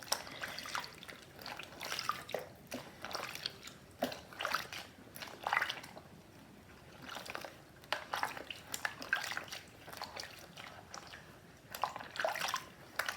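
Water sloshing, splashing and dripping in a washing-up bowl as a soft plush toy is held down and moved about in the washing solution, in short irregular splashes.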